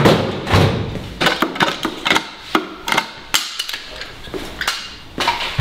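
Irregular sharp clicks and knocks of hand tools as a number plate is fastened to the back of a scooter.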